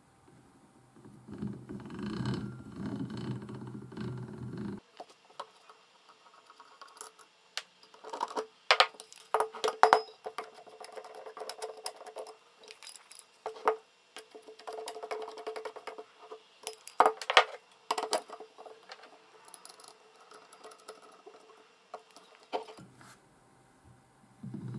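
Rusty gears of an old enclosed two-speed breast drill whirring and grinding as its crank is turned in first speed for about four seconds. Then come sharp metal clicks and knocks as the crank and handle are taken off and handled on the housing. The whirring of the cranked drill starts again near the end.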